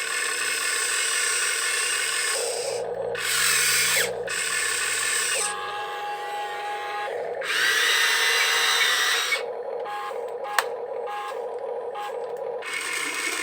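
Small electric motors and plastic gearboxes of Huina RC construction models whining in short runs that start and stop every second or few, changing pitch from run to run. A single sharp click comes about ten seconds in.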